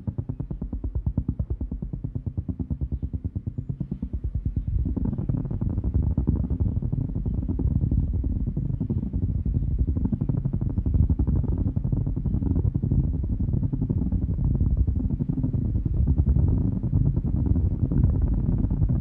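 Designed spaceship engine ambience: a low, steady rumble with a fast, even flutter, which thickens and grows louder about five seconds in.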